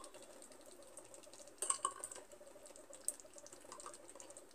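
A spoon scraping and clicking against a ghee jar as soft ghee is scooped onto cooked rice. There is a short cluster of clicks about a second and a half in and one more tap about three seconds in, over a faint steady hum.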